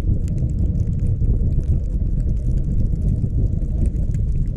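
Steady low rumble of a VW T6 California 4Motion van driving slowly through deep snow, picked up by a GoPro mounted on the outside of the van, with scattered faint ticks over it.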